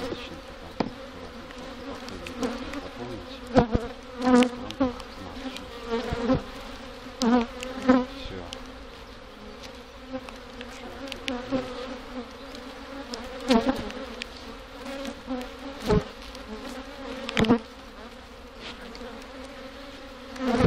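Honeybees humming steadily around an opened nucleus hive, with single bees now and then buzzing close by. Several sharp knocks of wooden hive parts being handled as the hive is covered up.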